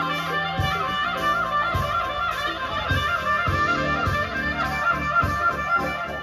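Alto saxophone played live, a melody with wavering, vibrato-like notes, over a backing track with a bass line and a steady beat.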